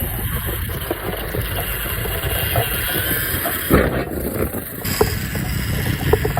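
Small electric RC car driving fast over street paving: a steady rough rattle and rumble with scattered clicks, a louder knock a little under 4 seconds in, and a thin high motor whine coming in about 5 seconds in.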